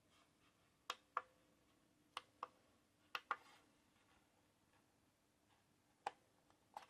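Buttons on a digital alarm clock being pressed, giving sharp clicks: three quick pairs of clicks in the first half, then two single clicks near the end.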